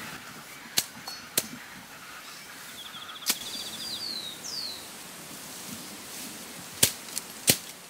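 Machete chopping through tall grass stems, six sharp cuts at uneven intervals, three in quick succession near the end, over a steady rustle of grass. A bird calls in the middle with a short trill and a few falling whistles.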